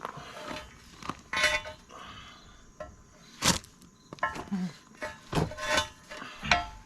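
Steel excavator thumb parts and pins clinking and knocking against each other several times, some strikes ringing on briefly, as the thumb is worked into line with the pin holes on the stick.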